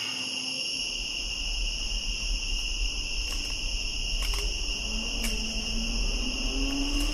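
Crickets trilling steadily, several pitches at once, with a low rumble beneath from about a second in and a few faint clicks.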